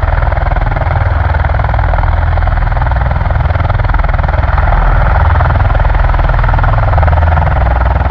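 Marine Corps V-22 Osprey tiltrotors running on the ground: a loud, steady, fast low chop from the proprotors over a constant engine rush.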